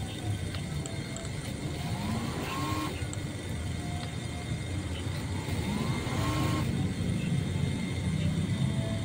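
Radio-controlled model fire boat running: a steady low motor rumble with two short rising tones, about two and six seconds in.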